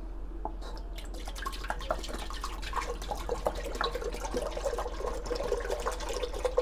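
Milk pouring in a steady stream from a plastic gallon jug into a stainless steel pot, splashing continuously from about a second in.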